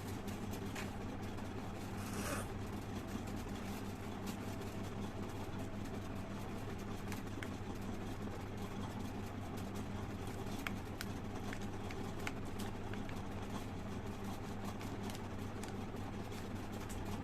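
A steady low hum runs throughout. About two seconds in comes one short hissing spit, and a few faint clicks follow later.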